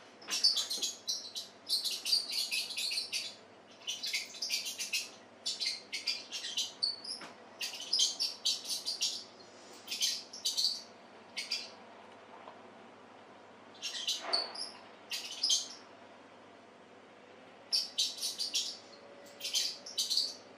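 High-pitched chirping squeaks from a cat game video playing on a television, coming in quick runs with short pauses between them.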